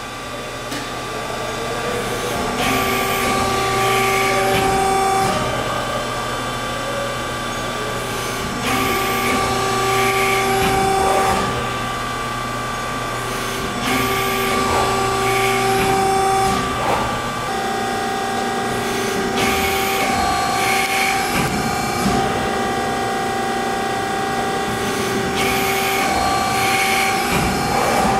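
The hydraulic power unit of an Accurpress Edge 120-ton CNC hydraulic press brake running with a steady hum. Five times, about six seconds apart, it swells for around two seconds with a hiss, as the hydraulics cycle the ram.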